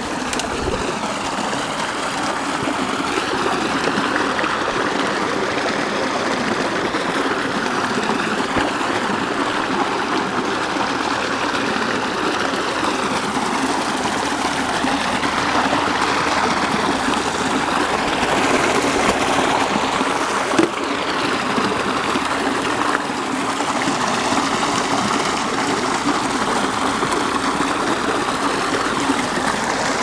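Small forest creek rushing and splashing over rocks in a steady wash of running water.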